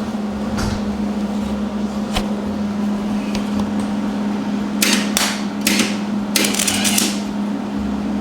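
Wire-feed welder humming steadily, with three short bursts of crackling arc about five to seven seconds in as tack welds are laid.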